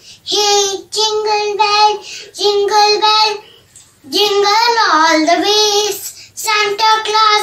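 A young girl singing a Christmas rhyme alone, in held notes grouped into short phrases, with a brief pause for breath about three and a half seconds in.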